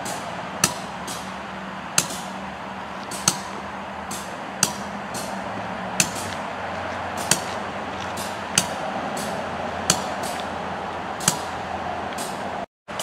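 Freight train cars rolling past, their wheels clacking over a rail joint at an even beat, about one sharp clack every 1.3 seconds with fainter clicks between, over a steady rolling rumble. The sound drops out briefly just before the end.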